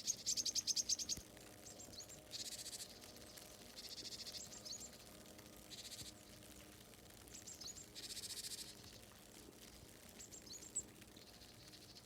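Small birds calling: short, high, downward-sliding chirps and quick rapid trills in little clusters every second or two, with a faint steady hum underneath.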